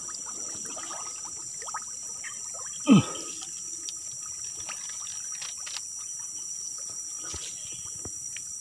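Light trickling and small splashes of shallow swamp water, with scattered small ticks. About three seconds in comes one short call that falls steeply in pitch, the loudest sound.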